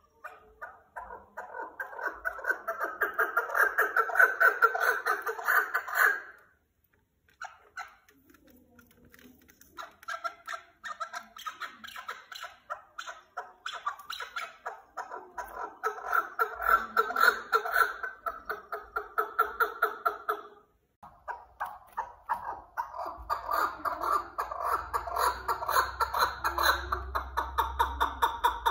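Caged chukar partridges calling: long runs of rapid, repeated chuck notes that build in loudness, in three bouts broken by short pauses.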